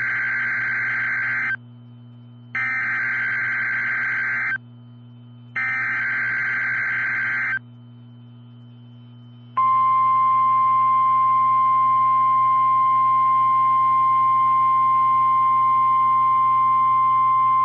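Emergency Alert System SAME data header: three identical bursts of warbling digital data tones, each about two seconds long, a second apart, then a steady single-pitch weather-radio warning alarm tone starting about nine seconds in. Together they signal a severe thunderstorm warning.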